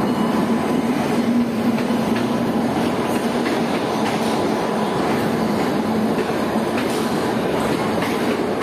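Indian Railways passenger coaches rolling past along the platform: a steady, loud rumble of wheels on rail, with faint clicks as the wheels cross rail joints.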